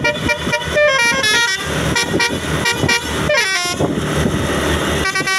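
Basuri telolet multi-tone horn on a Sumberjaya bus playing a quick tune of stepped notes, with a falling glide about two-thirds of the way in, over a rushing noise.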